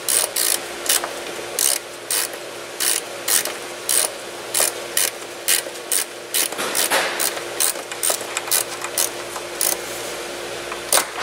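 Hand ratchet clicking in short, irregular strokes, about two to three clicks a second, as a new horn is bolted in place.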